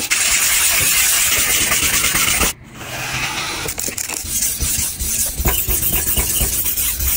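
Water sprayed from a spray bottle onto a whetstone: a steady hiss that cuts off suddenly about two and a half seconds in. It is followed by quieter, uneven spraying and rubbing on the wet stone's surface.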